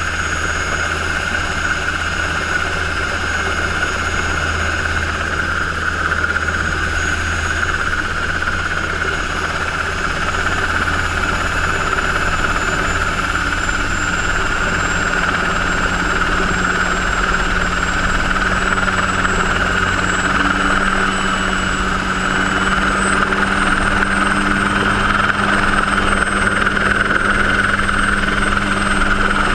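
Helicycle single-seat turbine kit helicopter running, heard from its cockpit: its Solar T62 turboshaft gives a steady high whine over the low drone of the rotor. Pitch and loudness rise slightly in the second half.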